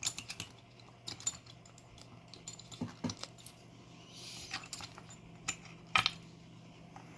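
Small metal parts of a disassembled Medeco lock core and tools clicking and tapping as they are handled, in scattered light ticks with a sharper click at the start and another about six seconds in.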